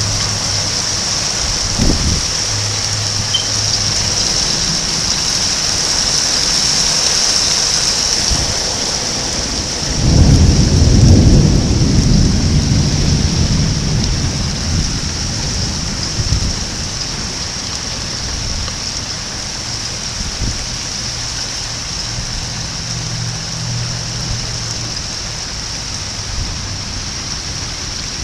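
Thunder during a rainstorm: a short low clap about two seconds in, then a long, loud rumble from about ten seconds in that fades away over several seconds, over the steady hiss of rain.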